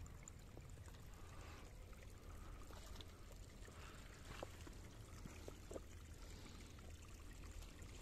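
Faint, near-silent snowy outdoor ambience: a steady low wind rumble, with a few scattered soft ticks and crunches.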